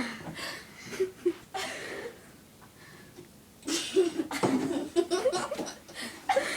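Girls laughing and giggling in short bursts, then a quieter pause, then a longer stretch of laughter starting a little past halfway.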